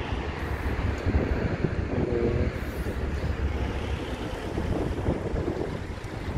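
Wind buffeting the microphone outdoors: a steady, uneven low rumble with a hiss above it.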